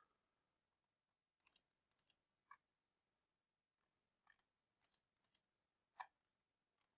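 Faint computer mouse clicks: about half a dozen short clicks, several coming as quick double clicks, over near silence.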